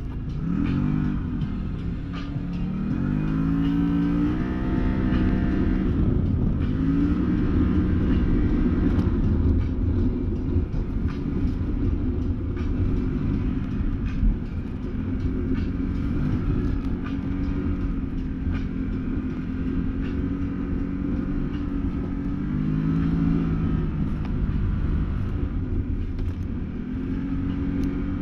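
Can-Am Maverick Sport X mr side-by-side's V-twin engine running under load on a trail. Its pitch climbs and drops repeatedly as the throttle is worked, over a steady low rumble.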